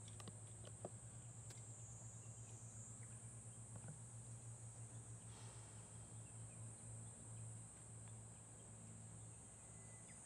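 Faint outdoor ambience: insects giving a steady, high-pitched continuous trill over a low hum, with a few faint ticks.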